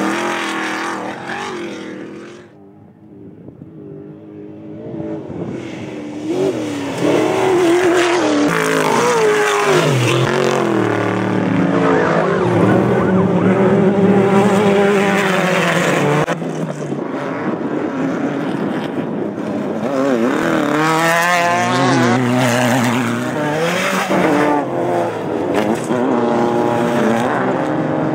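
Off-road desert race vehicles' engines running hard, their pitch rising and falling as they rev, shift and pass, with a quieter lull about three seconds in.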